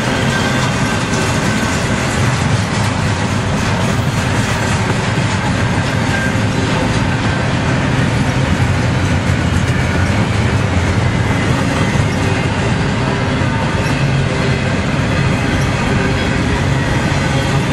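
Double-stack container train of intermodal well cars rolling past close by: a steady rumble and rattle of steel wheels on the rails.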